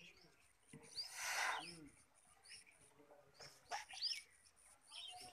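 Small birds chirping over and over in short, rising chirps. About a second in, a loud breathy hiss of air lasts under a second as a man draws hard on a hand-held smoking pipe.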